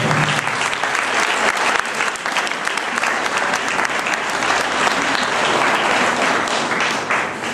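Audience applauding: dense, steady clapping that begins to die away near the end.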